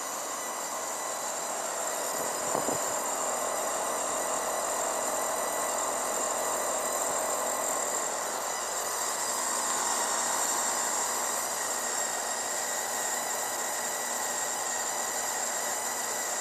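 Brand-new Rheem HVAC condenser unit running, a steady high-pitched squeal sounding over the rush of its fan. A single brief knock comes about two and a half seconds in.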